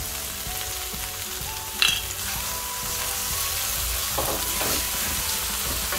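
Spice paste frying in oil in a hot stainless pan, with a steady sizzle. There is a single short click about two seconds in.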